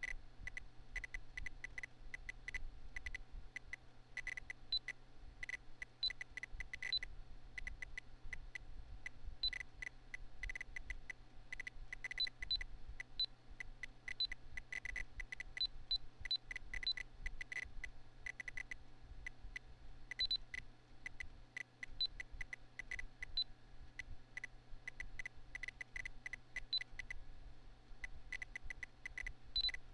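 A PC's internal speaker beeping irregularly, many short beeps of one pitch, each marking a magnitude 6.0–6.9 earthquake being plotted, with a few higher-pitched beeps marking magnitude 7.0–8.4 quakes. A computer fan's low rumble and hum runs underneath.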